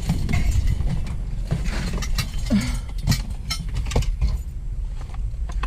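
Scrap metal being handled and tossed into a bin: a run of irregular clanks and knocks over a steady low rumble.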